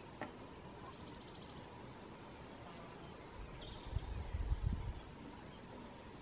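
Faint outdoor ambience: a steady background hiss with a faint high trill about a second in, and a low rumble around four seconds in.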